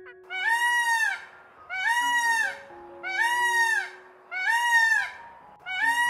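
Peacock calling: a loud honking call repeated five times, a little over a second apart, over soft background music.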